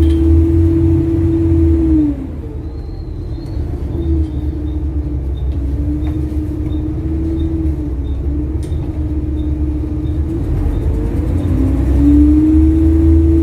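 Double-decker bus engine and drivetrain running under way. The note drops and eases off about two seconds in and builds again near the end, with a faint regular ticking while it runs lower. The title puts the ticking down to a blown exhaust manifold.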